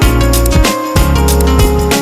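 Background music with a steady beat, heavy bass and plucked guitar-like notes.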